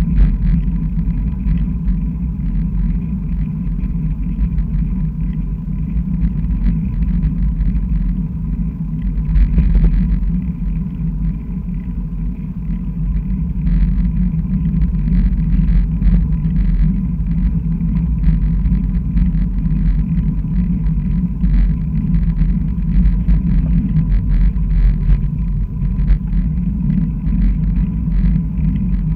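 Steady low rumble of wind and road vibration picked up by a camera mounted on a moving bicycle's handlebars while riding on asphalt, with frequent faint ticks and rattles.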